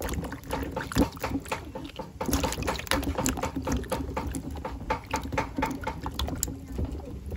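A hand swishing and rubbing small cucumbers in a plastic basin of water: quick, irregular splashing and sloshing.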